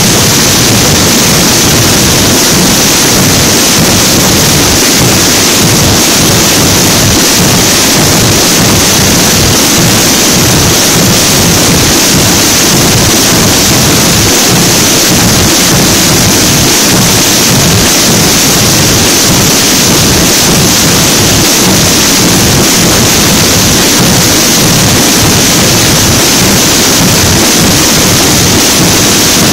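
Massed snare drums and bass drums (tambores and bombos) all beating together in a dense, steady rumble that overloads the phone's microphone. This is the Rompida de la Hora, the 'breaking of the hour' that opens the Holy Week drumming.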